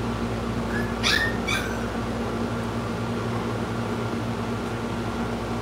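Steady machine hum, like a room air conditioner running, with two brief high squeaks sliding upward about a second in.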